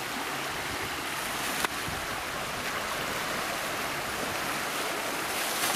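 Creek water rushing steadily over rocky shallows, with one sharp click about a second and a half in.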